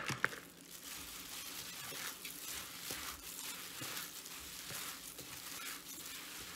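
A plastic-gloved hand squeezing and mixing moist plant-based meat and chopped vegetable dumpling filling in a stainless steel bowl: continuous irregular squelching and crackling. Two sharp knocks at the very start.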